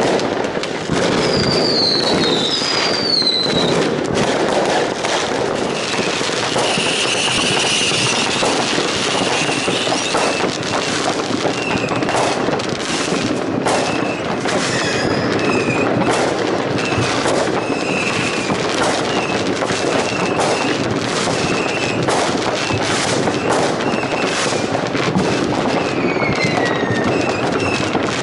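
New Year's fireworks going off all around: a loud, unbroken din of bangs and crackle from many firecrackers and rockets. Whistles glide down in pitch near the start and again near the end, and a high tone keeps cutting in and out through the middle.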